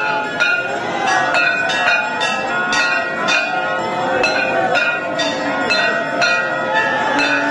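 A hand-held metal plate gong is struck with a stick at about two or three strikes a second. Each strike rings on into the next, mixed with ringing temple bells: the bell-and-gong accompaniment of a Hindu temple ritual.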